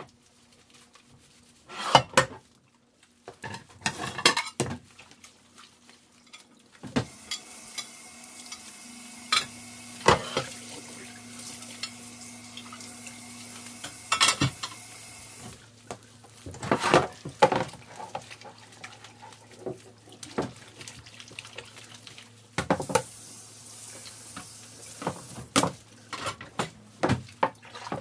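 Dishes and cutlery clinking and clattering as they are handled, with a stretch of running water from a tap in the middle.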